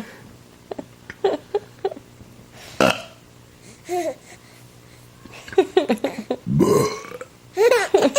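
A person burping: a short burp about three seconds in and a long, drawn-out one late on. A baby laughs at them.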